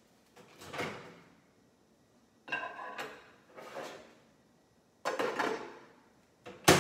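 Countertop microwave being loaded: a plate and a plastic cover clatter and knock as they are set inside, then the microwave door is shut with a sharp latch click near the end.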